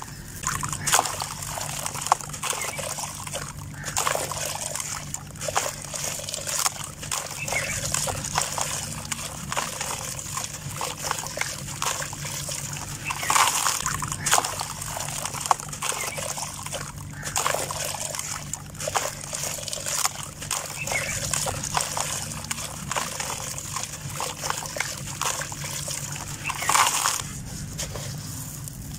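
A dry, gritty sand block crumbled by hand over a bucket of water: crunching and crackling as it breaks, with grains and chunks falling and splashing into the water, in uneven bursts and several louder crumbles.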